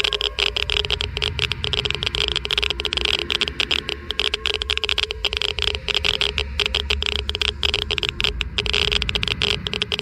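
Geiger counter clicking rapidly and irregularly in a dense crackle of counts, the sign of a high radiation level, over a low steady rumble.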